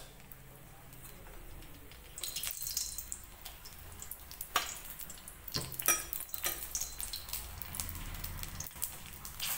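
Puris for pani puri frying in hot oil in a kadhai: a steady sizzle with many sharp crackles and pops, getting louder about two seconds in.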